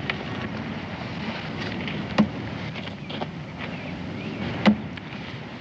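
Steady background hiss with two sharp knocks about two and a half seconds apart, the second the louder.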